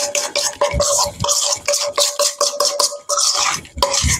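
A spoon stirring a wet mustard-and-relish dressing in a copper mixing bowl, scraping against the bowl in quick repeated strokes, about three or four a second, with a faint steady hum underneath.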